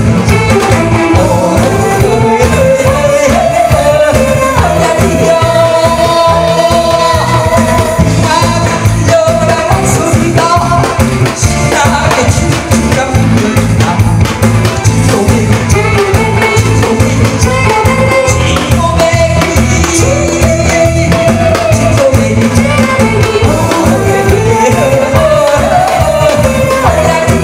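A male vocalist singing a Korean trot song live into a microphone, amplified through the PA over backing music with a steady beat.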